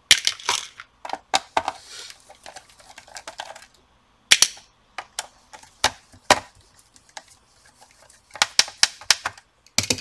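Irregular sharp clicks and taps of a screwdriver and small screws against a laptop's plastic bottom cover, as the cover screws come out and are dropped into a plastic parts box, with a quick run of clicks near the end.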